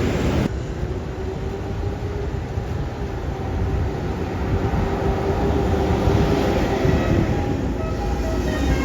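Heavy bus engine rumbling past with a steady droning tone. Near the end, short stepped notes of a multi-tone telolet horn begin.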